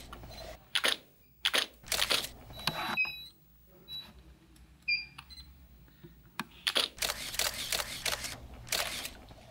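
Camera shutter firing: a few single clicks, then a quick run of several shots in a row near the end. Two short high electronic beeps come around the middle.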